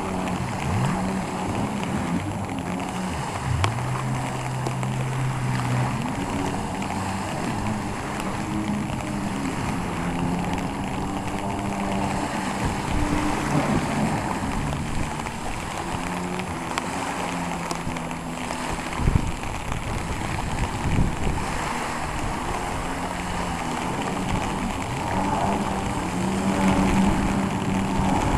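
Jet ski engines running at speed out on the water, the engine note shifting up and down as the riders throttle and turn, over a steady hiss of wind and surf.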